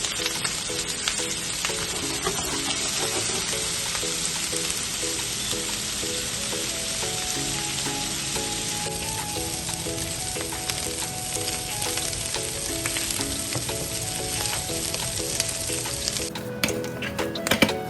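Food frying in hot oil in a pan, with a steady sizzle that cuts off suddenly near the end, followed by a few clicks. Background music with a simple melody plays throughout.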